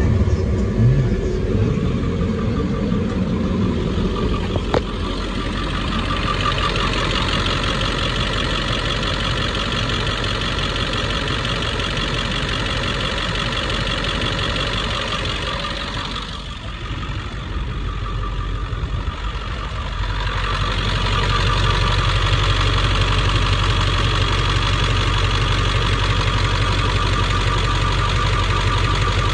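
Diesel engine of a 1998 International 4700 LP truck idling steadily. It gets louder and fuller about two-thirds of the way through, heard up close at the open engine bay.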